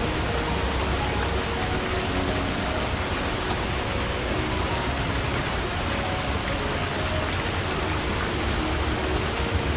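Forest stream flowing steadily: a constant rush of water with a low rumble underneath.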